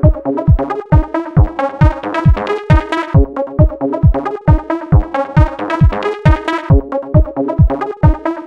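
Electronic dance music with a steady kick drum, a little over two beats a second, under synth chords.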